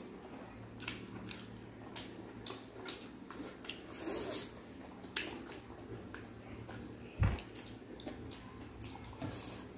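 Close-up eating sounds of people chewing crispy pata, deep-fried pork knuckle, taken by hand: wet chewing, lip smacks and small sharp clicks scattered throughout, with one dull thump about seven seconds in.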